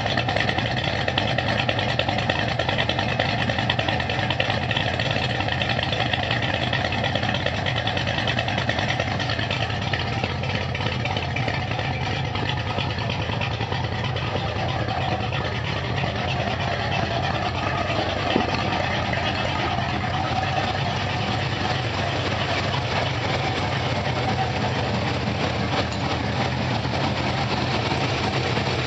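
Chevrolet pickup truck's engine idling steadily, heard through its exhaust.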